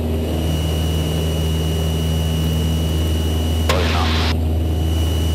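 Cessna 162 Skycatcher's four-cylinder Continental O-200 engine and propeller running with a steady drone, heard inside the cockpit. A short burst of noise cuts in briefly about three and a half seconds in.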